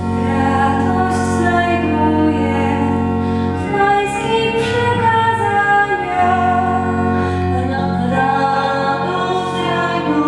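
A woman singing solo into a microphone, her melody carried over held low accompaniment notes that change every few seconds.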